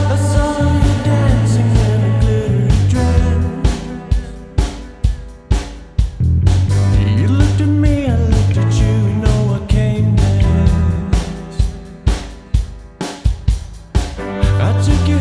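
Rock music played by a band: a steady drum beat, a sustained bass line and guitar.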